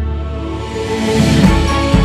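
Background music: the beat drops out briefly under sustained notes and a rising swell, then returns about one and a half seconds in.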